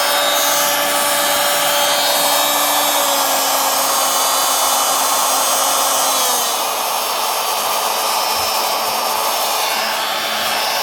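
Warrior 2 Amp corded oscillating multi-tool running with no load, a steady motor hum whose pitch steps down twice, about two seconds in and about six seconds in, as the variable-speed dial is turned lower.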